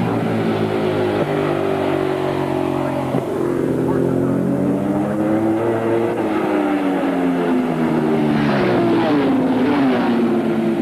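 Racing motorcycles at full throttle on a road circuit, one bike after another. A bike passes close just at the start with its engine note dropping as it goes by, and another comes up and passes near the end, its note rising and then falling.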